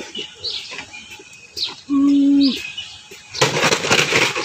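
Small birds chirping in short falling notes, repeated every half second or so. About halfway through comes a loud, steady-pitched held call of about half a second, and near the end a second of noisy rustling.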